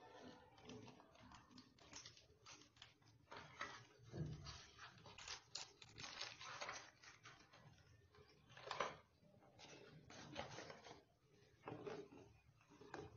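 Faint, irregular clicks and scrapes of a steel ladle against a steel pan of simmering milk, as it is stirred.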